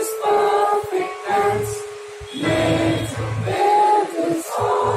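A school assembly singing the school song together, with held notes and a short pause between phrases about two seconds in.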